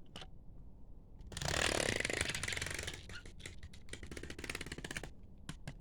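Motorised toy train running on its track: a rapid, buzzing rattle that starts about a second in, is loudest for about two seconds, then fades and stops, followed by a couple of light clicks.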